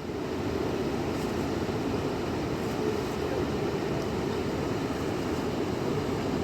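Steady rushing of a fast-flowing river, an even, unbroken wash of water noise.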